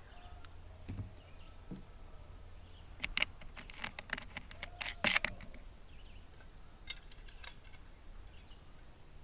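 Metal camp cookware being handled: a few sharp clicks and clinks of a small pot and mini stove, around three seconds in, again about five seconds in, and a few more near seven seconds.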